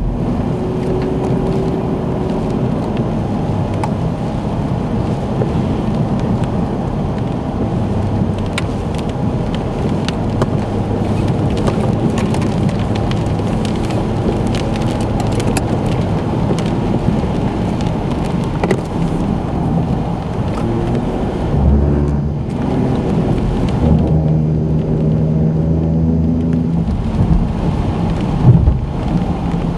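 Heavy thunderstorm rain, a steady loud hiss with scattered sharp ticks of drops striking close by.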